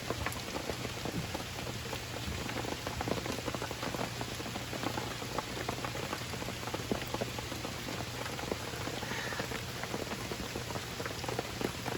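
Steady rain falling, with many small drop impacts ticking through it and a faint low hum underneath.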